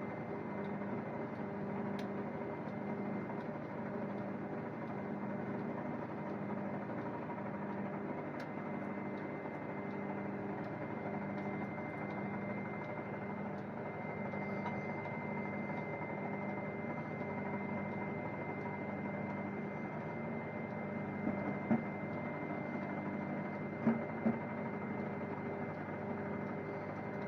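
Microwave oven running: a steady electrical hum with a faint even pulsing, plus a few light clicks near the end.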